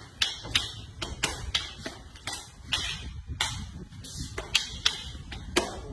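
Escrima fighting sticks clacking against each other in a fast Sumbrada flow drill, about three sharp knocks a second, over a low steady hum.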